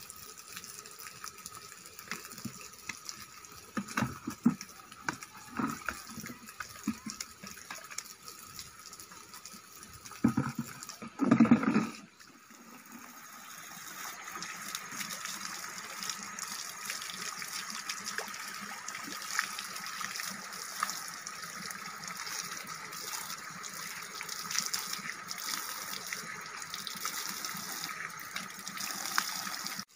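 Water running steadily from a trough spout and splashing over hands washed under it. Before that, a few knocks and bumps, the loudest a short burst about eleven seconds in.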